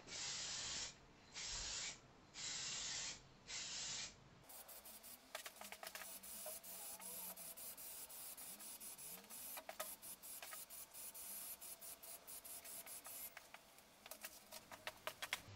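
Aerosol spray can of undercoat paint hissing: four short bursts, then a longer spell of spraying broken by many quick sharp clicks.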